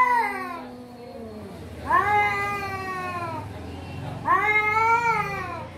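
Domestic cats yowling in a face-to-face standoff: three long, drawn-out caterwauls, each rising and then sliding down in pitch, with a lower, falling moan overlapping the first.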